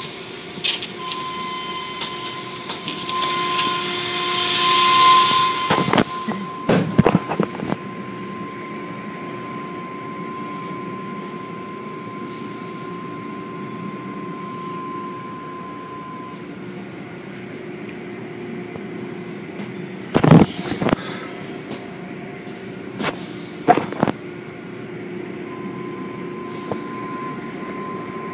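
Automatic tunnel car wash machinery running: a steady mechanical din with a high whine that drops out partway and returns near the end, and a hissing surge of spray a few seconds in. Several sharp knocks cut through, the loudest about twenty seconds in.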